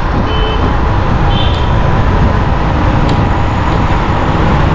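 Steady noise of riding a scooter through town traffic: wind rumble on the microphone mixed with motor and road noise. Two short high beeps come in the first two seconds.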